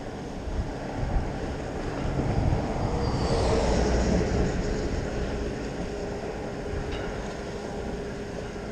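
Box truck passing on the highway bridge alongside: its tyre and engine rumble swells to a peak about three to four seconds in, the engine tone dropping slightly in pitch as it goes by, then fades away.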